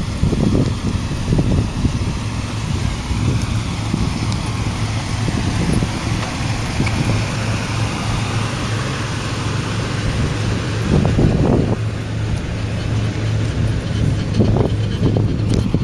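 Cadillac Coupe de Ville's V8 idling steadily, with gusts of wind buffeting the microphone now and then.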